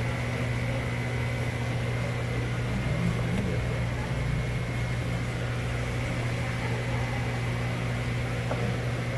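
Steady low mechanical hum with a thin steady high tone above it, even and unbroken throughout.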